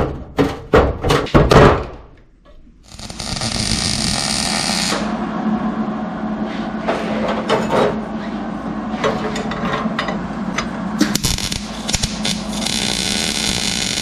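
Metal pedal parts knocking and clanking against a steel cart, then after a short pause a steady hiss with a low hum: a MIG welder welding up the accelerator pedal arm and bracket. The hiss grows brighter again about 11 seconds in.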